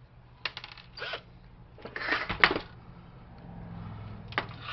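Clicks and short clatters of plastic and metal printer parts being handled and pulled apart during scrapping, the sharpest snap about two and a half seconds in. A faint low hum grows louder in the second half.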